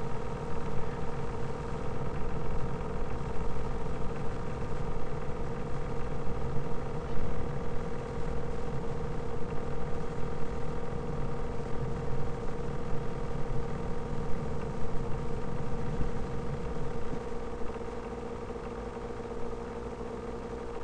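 Steady mechanical hum with a constant tone, under a low rumble that fades down about seventeen seconds in.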